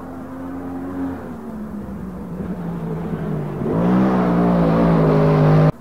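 Race car engine running at speed, its pitch sinking over the first few seconds. About four seconds in it grows much louder with a short upward sweep, then holds steady until it cuts off abruptly just before the end.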